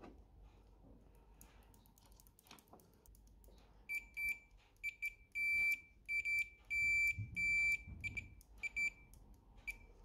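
Multimeter continuity beeper sounding in an irregular run of short and longer beeps on one high tone, starting about four seconds in, as the probes are held on a boiler micro switch's terminals and the switch is worked. The broken-up beeping shows the freshly cleaned, burnt contacts making only patchy connection. Light clicks of handling the switch come before it.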